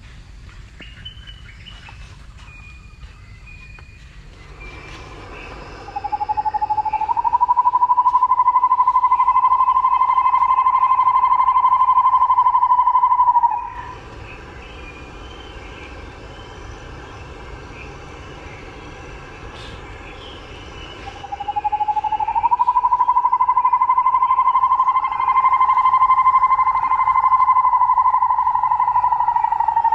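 A loud, steady, high drone sounds twice. Each time it swells in over about a second, rising a little in pitch, then holds level. The first lasts about seven seconds and stops abruptly; the second begins about twenty-one seconds in.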